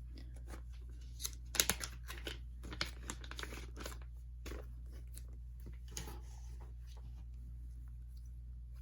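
Packaging crinkling and tearing as photocards are handled and taken out. A run of short rustles and clicks, loudest about a second and a half in, dying away after about six seconds.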